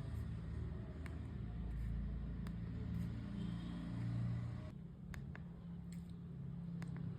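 Scattered short clicks, about ten of them at irregular intervals, from the keypad buttons of a Nokia 2660 flip phone being pressed to move through menus, over a low steady rumble.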